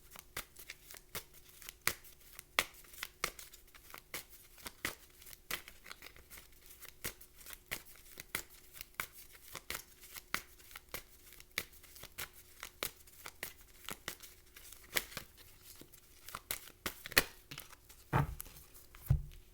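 Tarot cards being shuffled by hand: a long run of light, irregular card flicks and slaps, a few a second, with two duller thumps near the end.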